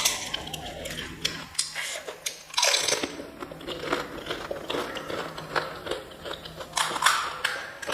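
Close-up eating sounds: crisp panipuri shells being bitten and chewed, a run of crunches and mouth clicks with a louder crunch about three seconds in and again near the end.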